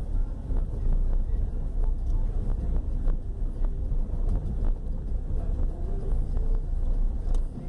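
Car cabin noise while driving over a cobblestone street: a steady low rumble with frequent small knocks and rattles.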